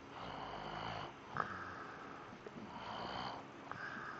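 A sleeping man snoring: a string of noisy breaths, one about every second and a quarter.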